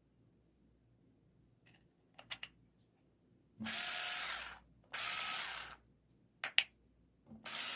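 Bosch cordless drill/driver running in short bursts of about a second: two bursts, then a third starting near the end. Pairs of sharp clicks come before the first burst and between the second and third.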